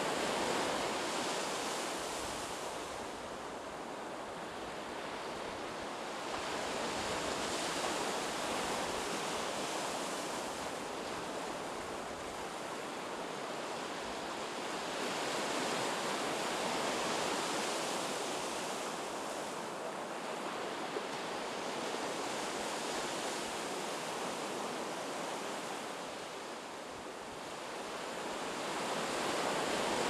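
Sea surf breaking on a sandy beach: a steady rushing wash of waves that swells and falls back every five or six seconds.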